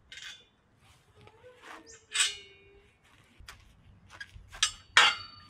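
Metal clinks and knocks from tools and bracket hardware being handled, a few separate sharp strikes, the loudest near the end ringing briefly.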